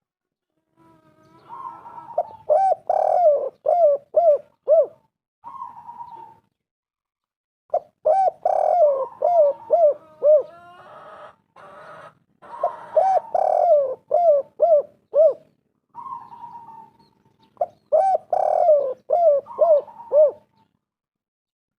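Spotted dove (tekukur) cooing: three bouts of quick, rising-and-falling coo notes, with a short phrase between the first two bouts.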